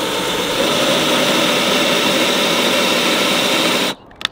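Cordless drill running steadily at full speed, boring a pocket hole into plywood with a stepped pocket-hole bit guided by a jig. It stops about four seconds in, followed by a brief click.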